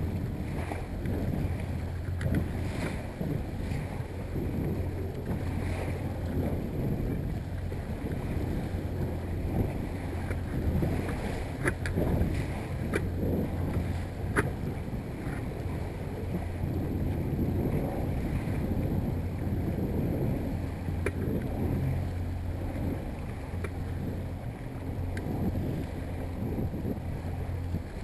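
Yamaha 70 hp outboard motor running steadily at trolling speed, about 1,200 RPM, under the wash of water against a small boat's hull and wind on the microphone. A few short sharp ticks come through around the middle.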